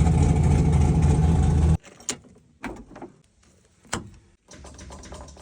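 An abandoned race car's engine running steadily, cutting off abruptly a little under two seconds in. A few sharp clicks and knocks follow, then a quieter low hum.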